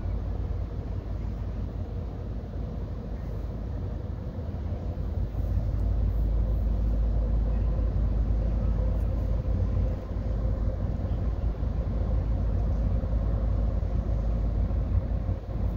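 Steady low rumble of a running vehicle with a faint steady hum over it, growing louder about five seconds in and holding there.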